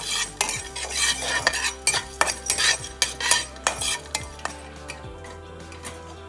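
Metal spatula stirring and scraping roasting carom seeds, cumin and black peppercorns around a metal kadai, a quick run of scrapes and clinks that stops about four and a half seconds in. Soft background music runs underneath.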